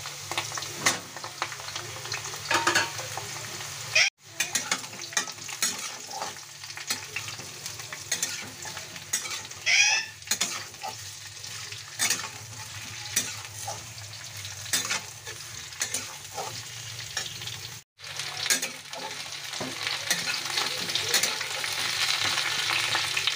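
Sliced teasle gourd and potato pieces frying in hot oil in a kadai, sizzling steadily, while a metal spatula stirs and scrapes them, with scattered clicks against the pan. The sound cuts out briefly twice, and the sizzle grows louder near the end.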